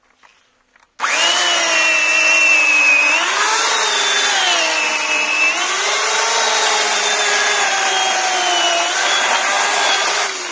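Bosch AKE 35S electric chainsaw, an 1800 W corded model, switched on about a second in and sawing through a cherry log: a loud steady motor whine that dips and rises in pitch as the chain bites into the wood. The sound drops near the end as the cut goes through.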